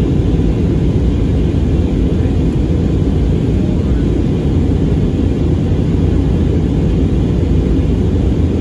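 Steady cabin noise of an Airbus A320neo in its climb after takeoff, heard from a window seat: a loud, even rumble of engine and airflow, deep and unbroken.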